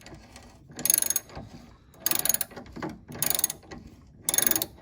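Hand socket ratchet clicking in four short bursts as each back-swing turns a bolt on the rear sway bar bushing bracket, which is being tightened down until snug.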